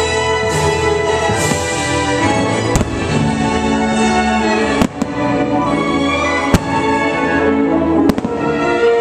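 Fireworks bursting over an orchestral show soundtrack, with four sharp bangs about 3, 5, 6½ and 8 seconds in.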